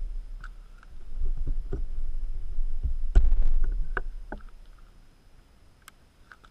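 Footsteps crunching on gravel, coming close, with a low wind rumble on the microphone; the loudest step lands about three seconds in, and the rumble dies away near the end.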